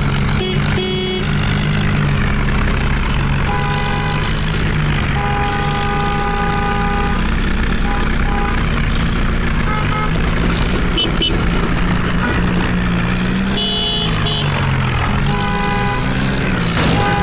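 Heavy diesel engine machinery running, its low hum rising and falling in pitch as it works under load. Over it come repeated steady high tones, some held for a second or more and some short.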